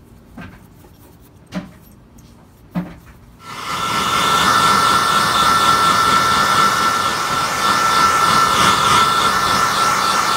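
A few light knocks, then a handheld hairdryer switches on about a third of the way in and runs steadily: an even rush of air with a high constant whine. It is blowing hot air on a leather boot to melt the packed-in wax dubbing into the seams and pores.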